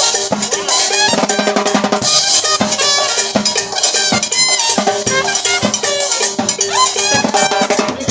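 Dance band playing, with drums and percussion driving a steady beat under sustained melodic instruments.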